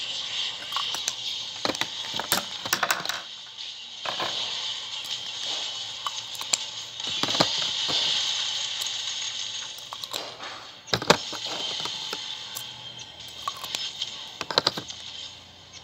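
Lipstick tubes in a display tray clicking and rattling as they are picked up and set back down, a scatter of sharp clicks and knocks over a steady hiss.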